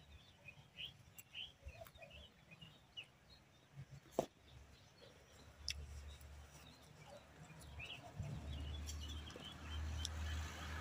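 Faint birds chirping, short calls repeated in the first few seconds and again around the middle, with one sharp click about four seconds in.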